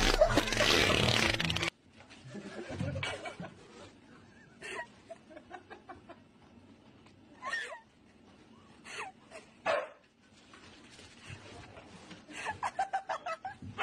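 A loud stretch cuts off abruptly after about two seconds. Then a husky makes scattered short barks and vocal noises, quieter, with a quick run of short rapid sounds near the end.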